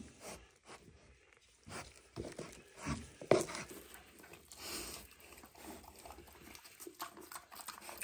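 Mini pigs eating strawberries: scattered crunching and chewing, with a few short grunts about three seconds in.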